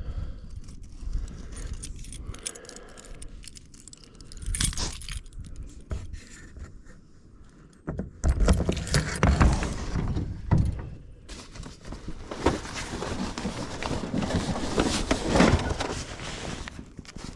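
Metal gear jingling and clattering as it is handled, with scattered rattles at first and a louder, busier run of clatter through the second half.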